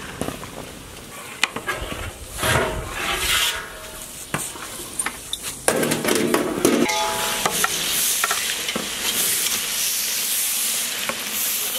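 Sliced onions sizzling in a large metal pot while a metal ladle stirs and scrapes them, the sizzle steady through the latter part. Earlier, scattered knocks and clinks of pots and utensils.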